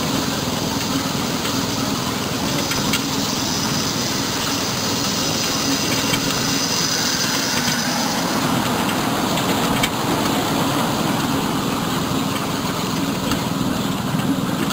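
Miniature ride-on passenger train running along its track: a steady rumble of wheels on rails and carriages, with a couple of light clicks.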